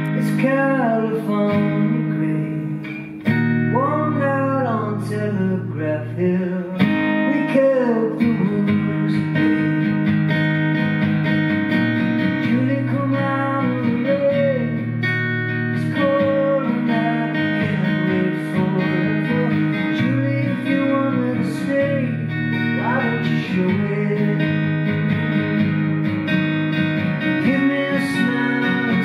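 Solo acoustic guitar strummed in steady chords, with a man singing a melody over it.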